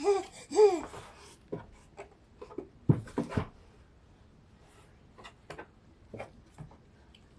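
Two short wordless cooing sounds from a baby at the start, followed by scattered light taps and knocks, like small hands patting and moving things on a floor.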